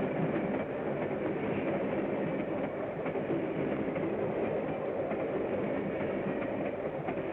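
A train running with a steady rumble and clatter of wheels on the rails.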